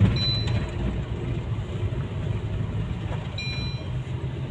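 Car cabin noise while driving: a steady low rumble of engine and road.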